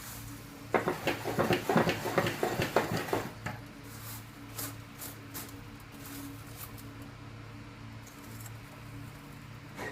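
Ash being scraped and raked out of a wood-powered sawmill: a quick run of scraping and rattling for about two and a half seconds near the start, then a few scattered light clicks, over a steady low hum.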